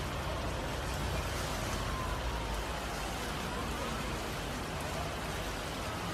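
Heavy rain falling steadily onto a flooded street, an even hiss with a low rumble underneath.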